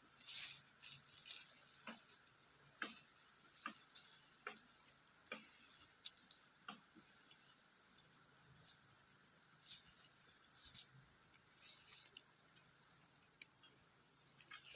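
Insects chirring steadily and high-pitched, with scattered light clicks and taps at irregular intervals.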